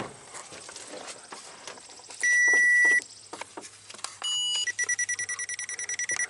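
Power Probe ECT2000 open-and-short locator beeping as it is swept along the wiring harness: light handling clicks, then one long steady beep a couple of seconds in, a short higher beep, and from about halfway on rapid, even beeping as it picks up the tracer signal on the wire.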